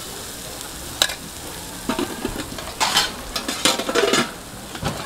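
Metal spoon scraping and tapping on a hot cast-iron bungeoppang (fish-shaped pastry) mold as shredded cheese is spread over it, over a steady sizzle of the cheese cooking. The scrapes come in short clusters, starting about a second in and heaviest around the middle.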